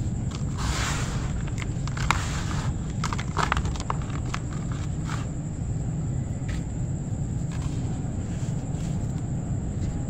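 Clumps of ash crumbling between the fingers and dropping into a basin of water: a run of small crackles and splashes in the first few seconds, then fainter stirring. A steady low rumble and a faint high whine run underneath.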